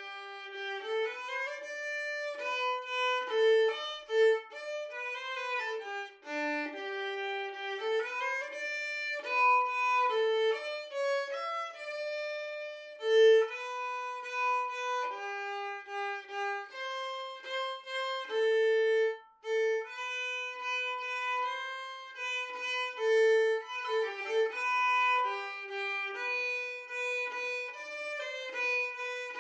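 Background music: a single violin melody with no bass or accompaniment beneath it, moving between held notes and quicker runs.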